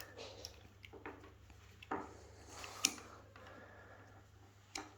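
Faint handling noise with a few sharp little metal clicks as the brake pads are squeezed together inside a hydraulic disc brake caliper; the loudest click comes about halfway through.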